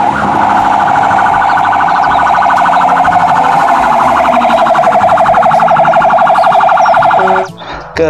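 Fire engine siren sounding a fast, rapidly warbling yelp that cuts off about a second before the end.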